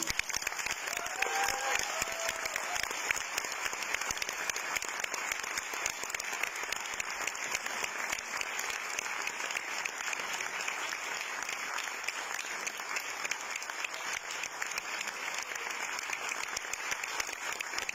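Large theatre audience applauding: a dense, steady round of clapping.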